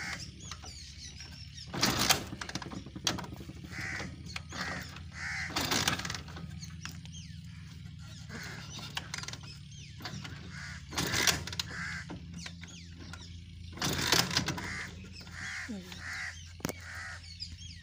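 Crows cawing in repeated runs of three or four harsh calls, over a steady low hum. Several short loud knocks or scrapes, the loudest sounds, come at about 2, 6, 11 and 14 seconds in.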